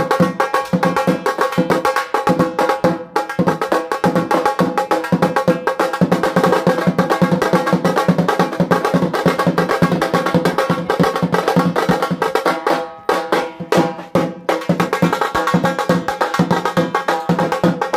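Music with fast, dense percussion over sustained held notes, briefly thinning out twice near the two-thirds point.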